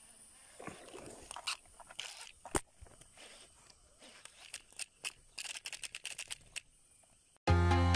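Scattered clicks and handling noise from a rod and baitcasting reel being handled, with a quick run of clicks about five and a half seconds in. Loud electronic music cuts in suddenly just before the end.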